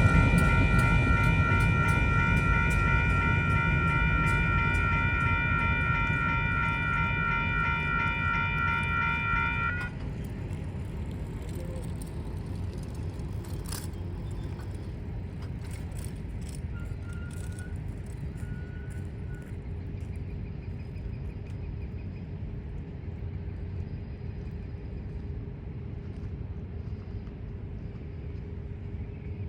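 Railroad grade-crossing warning bell ringing as one steady, slightly pulsing tone, cutting off abruptly about ten seconds in. Beneath it the low rumble of the passing train fades steadily as the train moves away.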